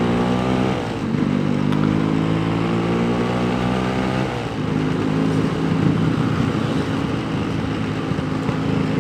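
Yamaha RX King's 135 cc two-stroke single-cylinder engine pulling under way. Its pitch climbs gently and drops at upshifts about a second in and again about four seconds in, then holds fairly steady.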